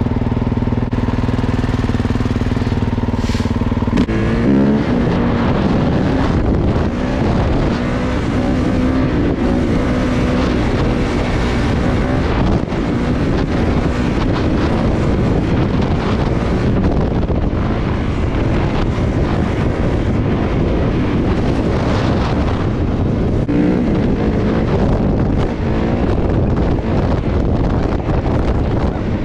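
Kawasaki KX450 dirt bike's single-cylinder four-stroke engine idling steadily for about four seconds, then pulling away, its pitch rising and falling with the throttle as the bike is ridden.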